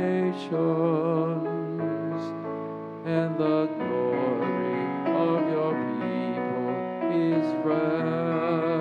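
A slow communion hymn: a voice singing held notes with vibrato over keyboard accompaniment, the notes changing every second or so.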